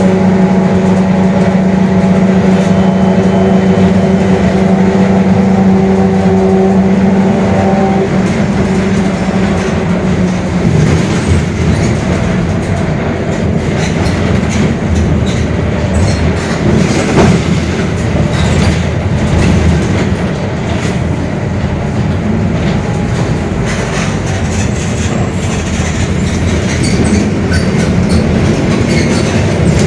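Mercedes-Benz OF-1721 BlueTec 5 city bus under way, heard on board, with a growling differential. A steady drone runs for about the first ten seconds, then gives way to rattling body and road noise for the rest.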